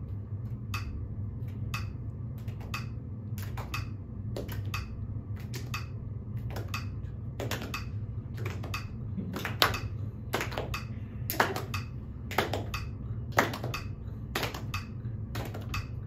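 Metronome ticking a steady beat, with hand claps joining in about halfway. The claps are meant to fall on the last note of each triplet rather than on the tick, a syncopated rhythm-training exercise.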